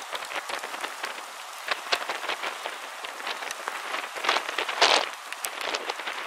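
Rain pattering, with many sharp drop impacts ticking over a steady hiss and a couple of louder swells about four and five seconds in.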